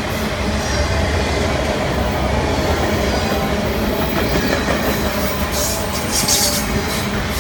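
Freight train cars rolling past, a steady rumble of steel wheels on the rails, with a brief high-pitched wheel squeal about six seconds in.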